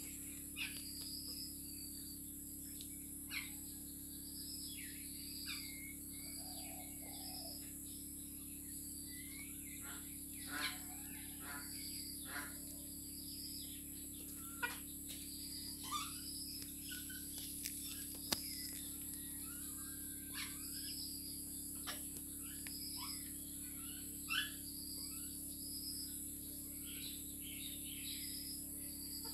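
A small flock of chickens feeding: short chirps and soft clucking calls come and go, with sharp clicks scattered among them from beaks pecking grain off the ground. A short high note repeats about once a second, over a steady high-pitched hum.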